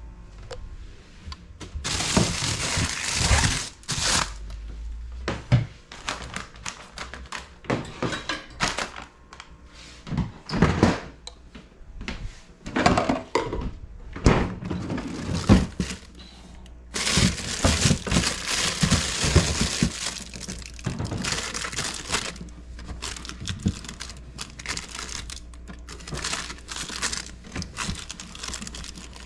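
Food containers and plastic packaging being handled while a refrigerator is cleaned out: plastic crinkling and containers thunking down in irregular bursts.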